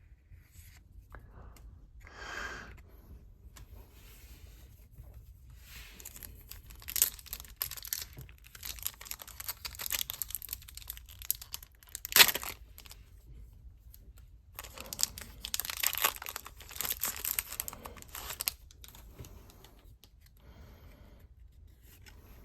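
Crinkly Pokémon card packaging being torn open and handled, in irregular spells of tearing and crinkling with one sharp snap about halfway through.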